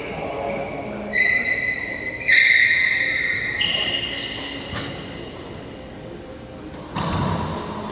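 Three sharp, high ringing pings about a second apart, each ringing on for a second or so, then a dull thud near the end, echoing in a racquetball court.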